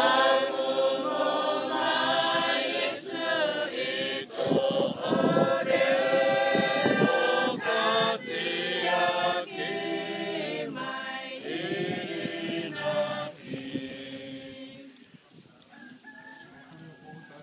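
A crowd of mourners, men and women, singing a Cook Islands hymn (imene) unaccompanied, in full voice with long held notes. The singing dies away about three seconds before the end.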